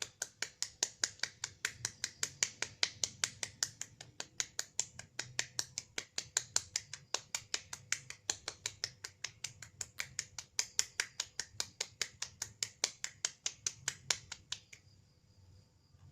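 Rapid, evenly spaced clicking, about four to five crisp clicks a second, that stops suddenly near the end.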